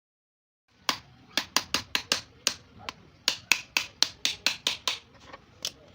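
Rapid, sharp knocks, about four a second, from a tool striking and cutting into the plastic case of a lead-acid battery; they begin about a second in and stop near the end.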